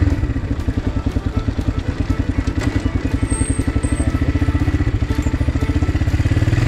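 Dirt bike engine running at low revs, with an even pulse of about ten beats a second.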